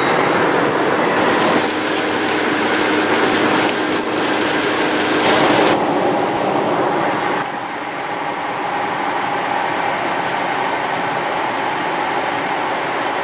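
Steady road and wind noise inside a car moving at highway speed. The hiss cuts off abruptly about six seconds in and the noise settles lower and steadier as the car goes into a road tunnel.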